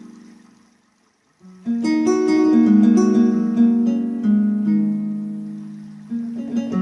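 Synthesized string music with plucked, guitar-like notes that decay. It fades almost to silence about a second in, then a new phrase of overlapping notes starts.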